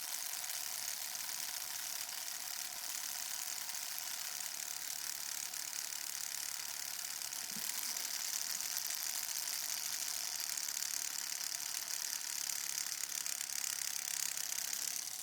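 Battery-powered homemade tattoo machine, its needle made from a guitar string, running steadily: an even, high-pitched buzz with fine rapid ticking.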